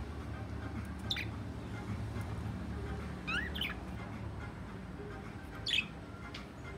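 Budgerigars chirping in short calls: one about a second in, a pair of rising chirps near the middle, and a louder one near the end, over a steady low hum.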